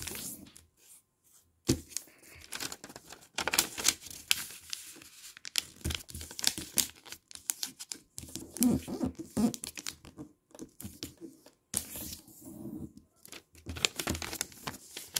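Colored origami paper being folded, pressed flat and unfolded by hand: crisp rustling and crinkling that comes and goes irregularly, with short pauses. The sheet is being creased along its horizontal, vertical and diagonal lines.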